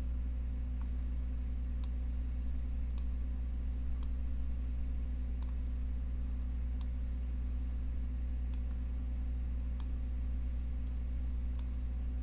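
Computer mouse clicking, about eight sharp clicks at uneven intervals of one to two seconds, over a steady low electrical hum.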